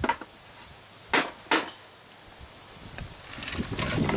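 Hammer driving nails into a wooden beehive deep box: three sharp blows in the first second and a half and a lighter tap a little later. Near the end comes a louder scraping, rustling sound as the wooden box is shifted and handled.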